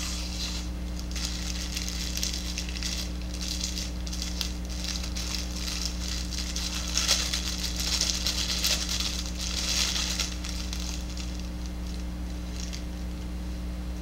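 Clear plastic wrap crinkling and crackling as it is worked off a folding knife, in irregular bursts that are loudest about seven to ten seconds in.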